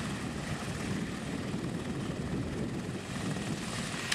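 Medical helicopter running on the ground, its turbine engine and main rotor making a steady whirring drone.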